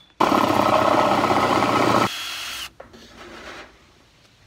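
Power drill running hard for about two seconds as it bores holes in plastic, then running on more quietly with a thin whine for about half a second before stopping.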